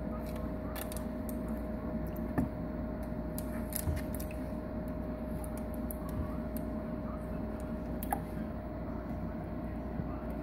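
Steady hum of an aquarium's running equipment with a constant tone, and a few light clicks and scrapes as a turtle's claws scrabble at a basking rock.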